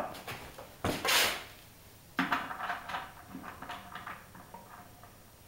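Handling noise as a metal washer and nut are fitted onto the bolt under a plastic bucket: a sharp knock about a second in, a short rush, then faint small clicks and rattles.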